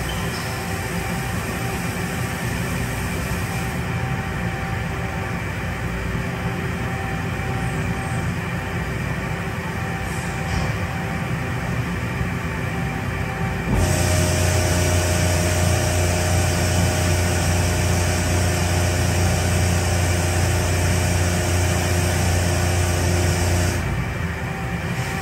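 Doosan NHP 5000 horizontal machining center running with its coolant system on: a steady machine hum under the hiss of coolant spraying around the spindle and tool. About 14 seconds in, a louder deep hum and stronger hiss start suddenly, hold for about ten seconds, then drop back.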